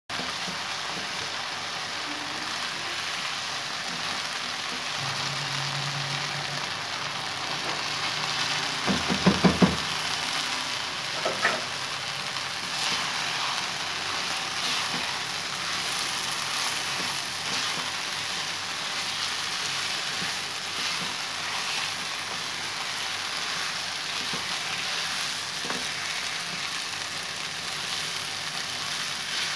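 Chana dal and minced meat sizzling steadily in a non-stick wok while a slotted spoon stirs them. About nine seconds in, the spoon knocks against the pan several times in quick succession, with two more knocks a moment later.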